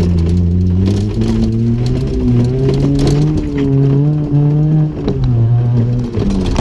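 Nissan Micra rat-rod's engine revving up under acceleration, its note climbing for about four seconds, then dropping back as the throttle comes off near the end.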